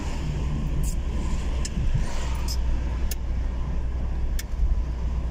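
Car driving along a city street, its engine and tyres making a steady low rumble inside the cabin, with a few brief clicks scattered through it.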